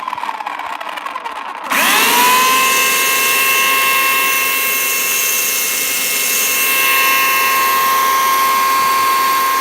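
Bosch AKE 35 S electric chainsaw running quietly at first, then switched on again about two seconds in. The motor spins up with a rising whine and runs at a steady high pitch.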